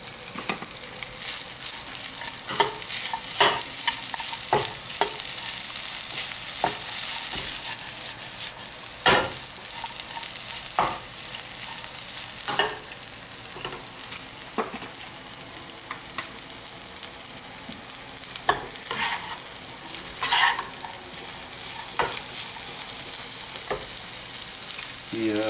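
Fried rice with shrimp and vegetables sizzling in a hot nonstick frying pan while a spatula stirs and tosses it, with irregular scrapes and knocks of the spatula against the pan over the steady sizzle.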